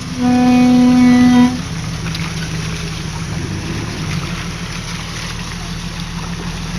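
An off-road vehicle's engine running steadily with a low drone, and one held horn blast of about a second and a half near the start.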